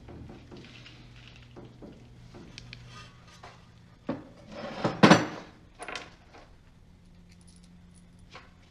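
Metal tools and parts clinking and knocking during hands-on work, with one loud metallic clank about five seconds in.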